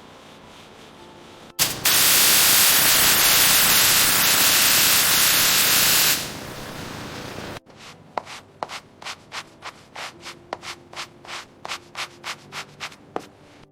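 A loud steady hiss for about four and a half seconds that drops away, then quick rhythmic rubbing strokes, about three a second, as of hand sanding on a car's body panels.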